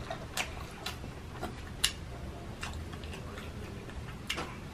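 Eating sounds close to the microphone: a string of irregular, sharp little clicks and ticks, about one every half second, the sharpest a little under two seconds in.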